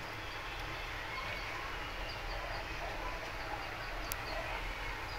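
Steady hiss and low rumble of the kitchen while a metal spoon stirs thick milk kheer in a pan over a lit gas burner. Faint short high chirps repeat every half second or so, and there is one sharp tick about four seconds in.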